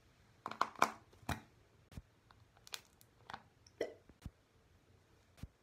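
A plastic skincare cream jar being handled and its lid twisted open: a string of short scrapes, clicks and taps, busiest in the first second and a half, then sparser.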